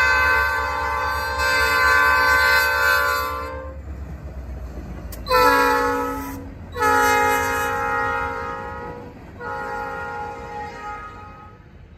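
Norfolk Southern diesel locomotive 3233's multi-tone air horn sounding a grade-crossing series of blasts: a long blast that ends about three and a half seconds in, a short blast, then longer blasts that fade toward the end as the train moves away. The locomotive's low engine rumble sits under the first blast and dies away.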